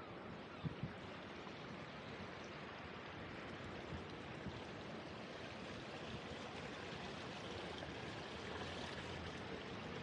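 Water running in a stone-edged ornamental pond channel: a steady, even splashing hiss that grows a little louder toward the end. Two short thumps just under a second in.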